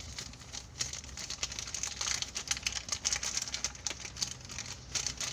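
Packaging crinkling and rustling as it is handled, a dense run of small crackles with no pause.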